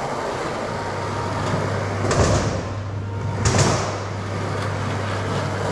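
Skateboard wheels rolling on a smooth concrete floor, a steady low rumble, with two short, louder knocks about two and three and a half seconds in.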